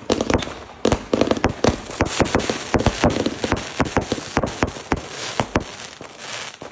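Consumer fireworks going off in a rapid string of sharp bangs and crackling over a rushing hiss. The bangs thin out near the end.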